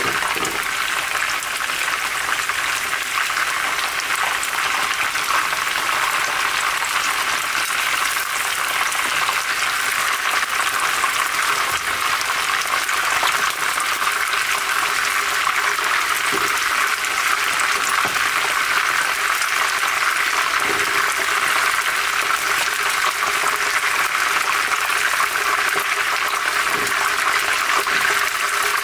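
Chicken pieces shallow-frying in hot oil in a pan, making a steady sizzle.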